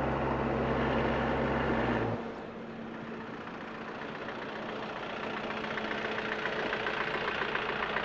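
Vehicle engine running with a steady low drone that drops away about two seconds in. It then idles more quietly, with a rhythmic ticking clatter.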